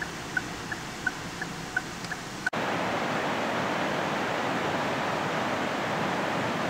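A bird calls in short high notes, about three a second, over a faint outdoor hiss. About two and a half seconds in, the sound cuts abruptly to a louder, steady rushing noise that lasts to the end.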